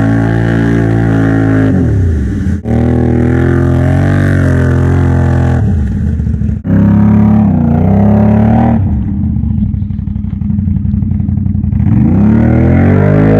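Can-Am Outlander 570 ATV V-twin engine revving hard as its tires spin in deep mud, the pitch sagging and climbing again several times as the throttle is worked. The sound cuts out for a split second twice, and the engine eases to a lower, quieter note for a few seconds before it climbs again near the end.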